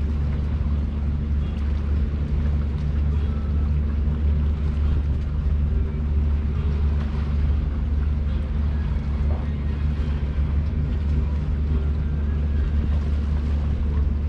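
Steady, low-pitched engine drone.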